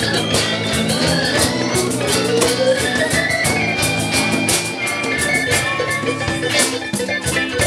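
Live band playing: electric guitar, keyboard, congas and drum kit over a steady beat.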